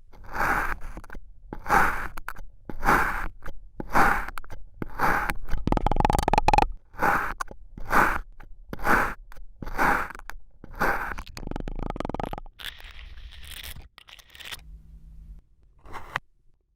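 Kinetic sand crunching under a series of strokes, about a dozen roughly a second apart, followed by a softer, longer scrape near the end.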